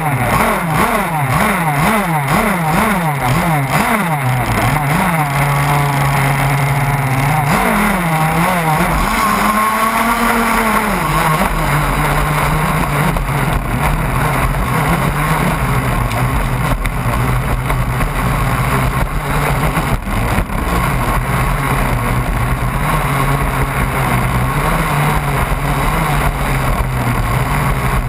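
Motor of a large radio-controlled racing catamaran, recorded on board. Over the first few seconds its pitch swings up and down rapidly, then it holds a steady pitch over constant wind and water noise as the boat runs over rough water.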